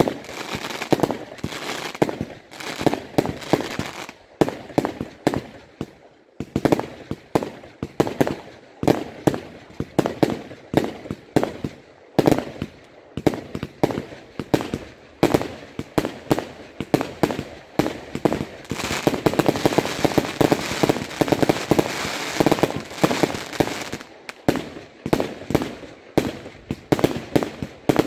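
Aerial fireworks bursting overhead: a rapid, unbroken series of bangs and pops with crackling stars, thickest and almost continuous a little past the middle.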